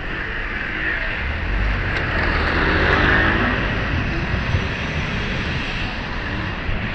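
A vehicle passing close by in street traffic, its rumble building to a peak about three seconds in and then easing off.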